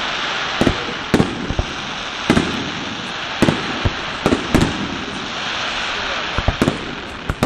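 Aerial fireworks shells bursting overhead: about a dozen sharp bangs at irregular spacing, some in quick pairs and triplets, over a continuous hiss.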